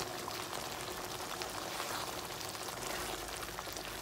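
Creamy tomato gravy with peas and paneer simmering in a frying pan: a steady bubbling with faint scattered crackles.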